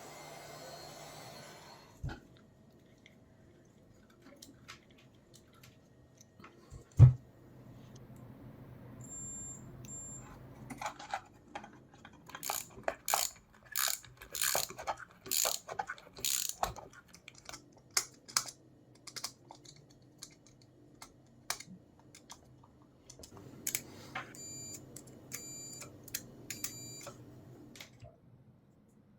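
Scattered clicks and knocks of hand work, with one heavy knock about seven seconds in and a run of sharp strikes, about two a second, in the middle; short high beeps come twice over a low steady hum.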